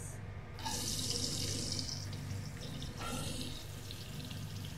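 Sliced onions sizzling in hot oil and butter in a pot: a burst of sizzling begins about half a second in and eases after a second and a half, with a second, shorter burst about three seconds in. A low steady hum runs underneath.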